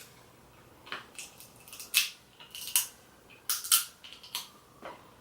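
Crab shell being cracked open: a series of sharp, separate cracks and snaps, the loudest about two seconds in.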